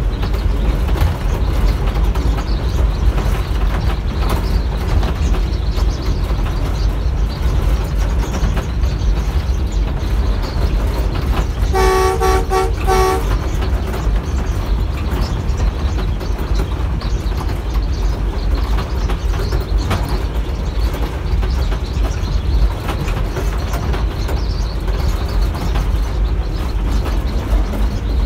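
Diesel locomotive running at speed, heard from inside the cab as a steady low rumble of engine and wheels on the rails. About halfway through, the horn gives one blast of about a second.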